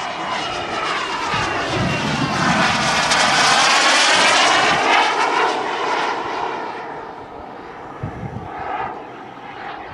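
Turbine engine of a radio-controlled model jet flying past, a loud rushing whine that swells to a peak around the middle and then fades.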